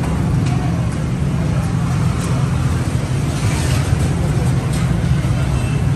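Busy street-food stall ambience: a steady low rumble throughout, with a few light clicks and clinks and a short hiss a little past the middle.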